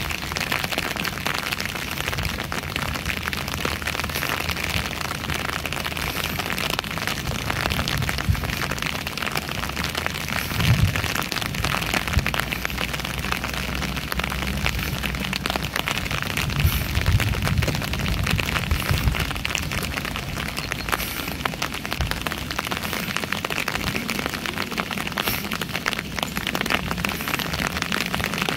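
Steady rain falling, a dense patter of drops hissing on wet ground and water, with a few low rumbles about a third of the way in and again past the middle.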